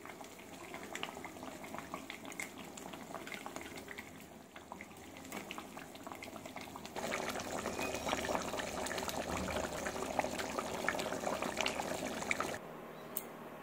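Thick prawn curry bubbling and sputtering in a steel kadai, a dense crackle of small bubble pops that grows louder about halfway through and drops off suddenly near the end.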